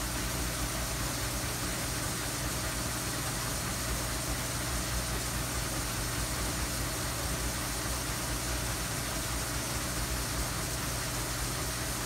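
Hobart LXiH high-temperature undercounter commercial dishwasher running a cycle with its door shut: a steady low hum under an even rushing noise of the pump and water spray.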